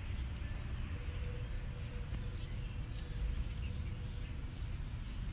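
Quiet garden ambience: a steady low rumble with faint, high, repeated insect chirps.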